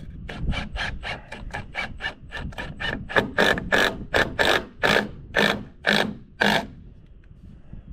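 A 2x6 lumber block being worked back and forth into place against a wooden truss, wood rubbing and squeaking in quick repeated strokes, about three a second. The strokes grow longer and louder about halfway through, then stop.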